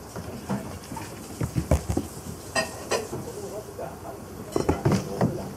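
Kittens scampering about on a wooden floor: scattered thumps and clattering knocks, bunched around the middle and again near the end.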